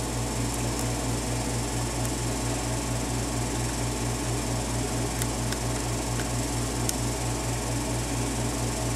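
Steady low mechanical hum that pulses evenly several times a second over a constant hiss, with a few faint light ticks of a lock pick working the pins of a pin-tumbler padlock.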